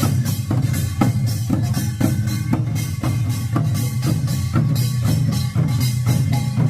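Korean pungmul percussion with buk barrel drums playing a steady, driving beat: regular strong strikes, about two a second, with lighter strokes between them.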